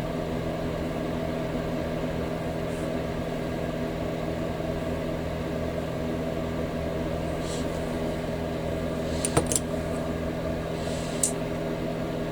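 Steady machine hum with several fixed low pitches, with a few short sharp clicks of small hobby parts and tools being handled on the workbench: a quick cluster about nine and a half seconds in and a single click just after eleven seconds.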